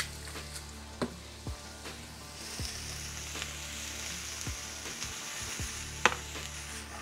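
Onion and green pepper sizzling in olive oil in a frying pan, the sizzle growing stronger about two seconds in. A few clicks of a utensil against the pan, the loudest about six seconds in.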